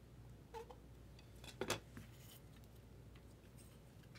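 Hands handling and opening a small clear plastic card case: a few faint clicks and scrapes of hard plastic, the sharpest about one and a half seconds in.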